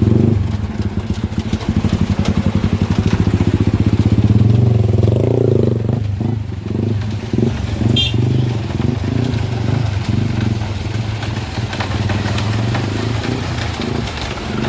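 A vehicle engine running close by: a steady low rumble with rapid firing pulses, its note shifting briefly about five seconds in.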